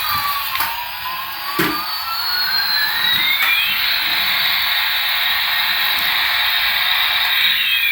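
Electronic toy sound effect from a small speaker: a steady jet-like hiss with two tones that slide apart in pitch, one down and one up, then glide back together in a slow repeating cycle. A few sharp clicks fall over it, the clearest about one and a half seconds in.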